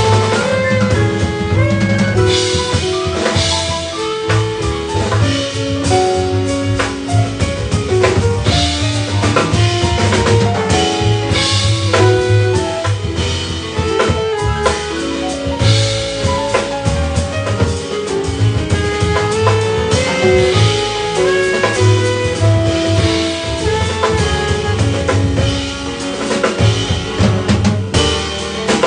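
Live jazz band playing: a saxophone carries held melodic notes over a drum kit with cymbals, backed by upright double bass, electric guitar and piano.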